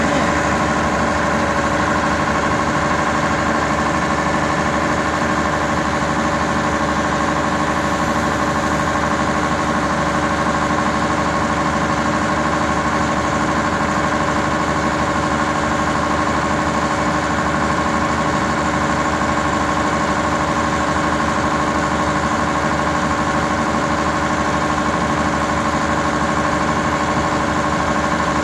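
MAN diesel railcar's engine idling steadily while the train stands at the platform: an even drone with several constant tones.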